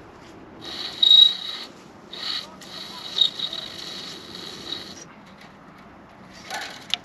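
High-tensile fence wire being pulled and dragged around a wooden strainer post, scraping and hissing in several long pulls, with a sharp click near the end.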